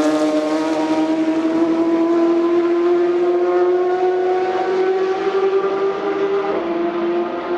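Race car engine under sustained acceleration, its note rising slowly as the car pulls away, with a short dip in pitch near the end.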